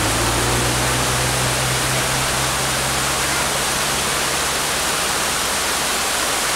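Waterfall cascading down rock ledges: a steady, even rush of falling water.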